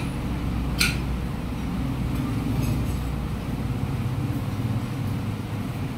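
Steady low rumble of street traffic, with a single sharp clink of cutlery on tableware about a second in.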